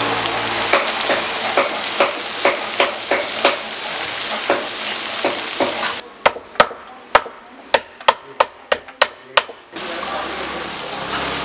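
Fish deep-frying in hot oil, a dense sizzle with sharp pops and crackles every fraction of a second. About six seconds in the sizzle gives way to a run of sharp clicks, about three a second, from fish being cleaned on a stone slab, and the frying sizzle returns near the end.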